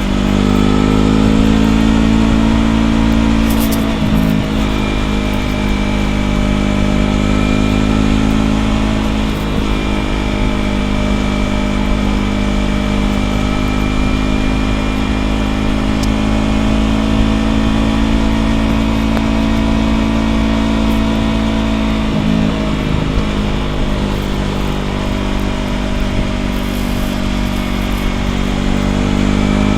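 Yamaha R3's 321 cc parallel-twin engine running through an aftermarket Ransoto slip-on exhaust while riding, mostly holding a steady pitch with a few brief dips and pick-ups as it shifts and changes speed, and a low rumble of wind underneath.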